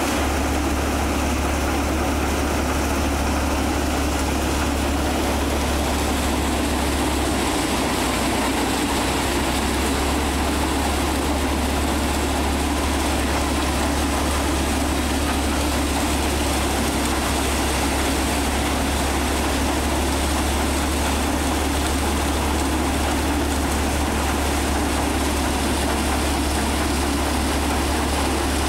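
Sonalika tractor's diesel engine running steadily under load while it drives a paddy thresher, with the thresher drum beating paddy straw. The sound is a continuous low engine drone with a steady machine rush over it.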